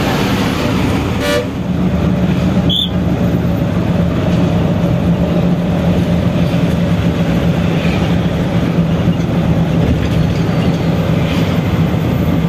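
Bus engine droning steadily with road noise, heard from inside the cabin while driving. A short horn toot sounds about a second in, and there is a brief click a couple of seconds later.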